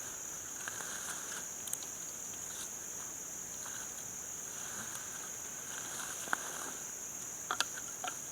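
Steady high-pitched insect chorus, with a few sharp clicks near the end.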